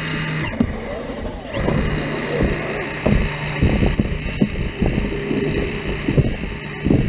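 Caterpillar 235 hydraulic excavator's diesel engine running steadily, with a series of irregular knocks and clanks from the machine at work, most of them in the second half.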